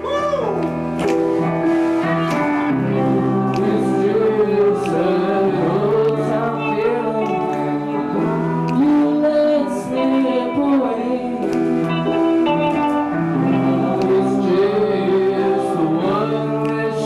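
A live band plays with a singer over sustained chords, and sharp clicks keep the beat about once a second.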